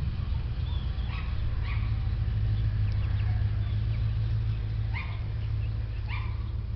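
Small dogs yapping in short yelps, four times, over a steady low engine hum.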